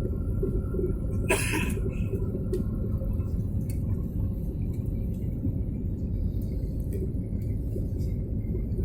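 Airliner cabin noise: a steady low rumble of the engines and airflow, heard from inside the cabin. A brief sharp noise cuts across it about a second and a half in.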